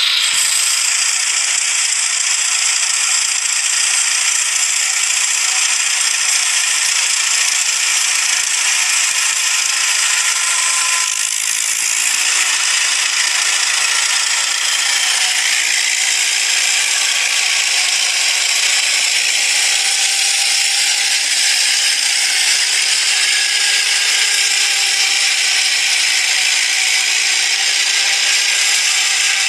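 Small snow-clearing tractor with a front auger running through deep snow: a steady mechanical rattle over a loud hiss, dipping briefly about eleven seconds in.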